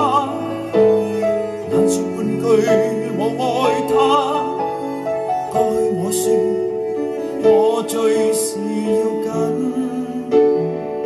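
A slow pop ballad played back through JBL K2 S5500 loudspeakers driven by a McIntosh MC602 power amplifier. In this passage between sung lines, long held melody notes waver in pitch over sustained chords.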